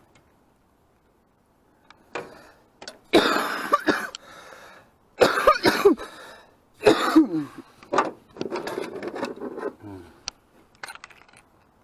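A man coughing and clearing his throat several times, starting about three seconds in; he is congested from a cold.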